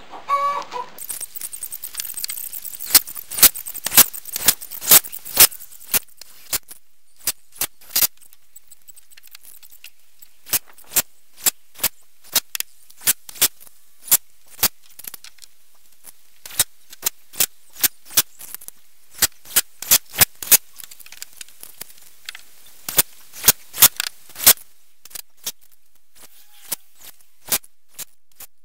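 Hammer driving nails into rough-cut spruce-pine siding boards: runs of sharp blows about two a second, broken by short pauses between nails.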